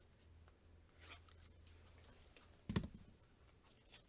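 Near silence with a faint click about a second in and a single dull knock nearly three seconds in.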